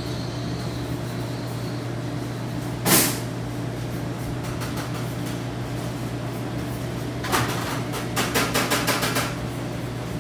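A knife scoring a crosshatch into pastry dough on parchment paper: one short scrape about three seconds in, then a quick run of strokes, about seven a second, near the end. A steady low hum runs underneath.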